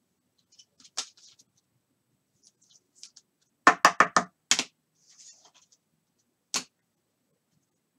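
Handling noises from trading cards and packs at a table: a sharp click about a second in, a quick run of four loud knocks near the middle followed by another, then one more knock near the end, with faint scuffs between.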